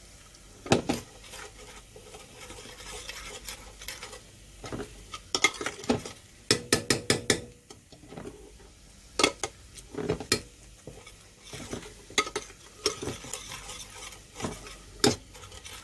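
Metal spoon stirring and scraping in a stainless steel pot, clinking against its side in quick runs of taps. Underneath is a faint sizzle of crushed garlic and spices frying in oil, being stirred so the garlic does not burn.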